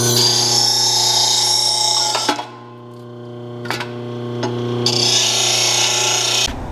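Electric grinder running and grinding a small bit of metal off a mower throttle part in two passes. About two seconds of loud grinding is followed by a stretch of just the motor spinning, then a second pass near the end before the motor shuts off.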